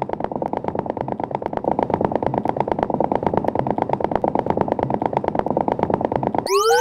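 Rapid, even pulsing of muffled noise, about a dozen pulses a second, an electronic soundtrack texture. Near the end it cuts off abruptly and a rising siren-like wail begins.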